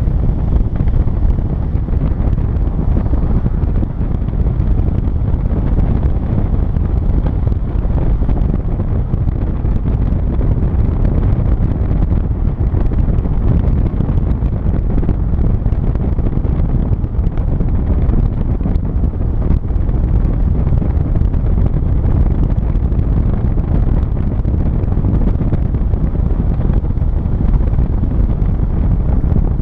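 Wind buffeting the camera microphone: a loud, steady, low rumble with no breaks.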